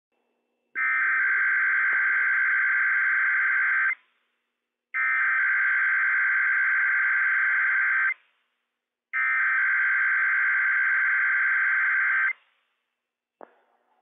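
NOAA Weather Radio Emergency Alert System SAME header, the digital data tones that encode a Required Weekly Test. The buzzy warbling data burst is sent three times, each about three seconds long with about a second's pause between. A short click comes near the end.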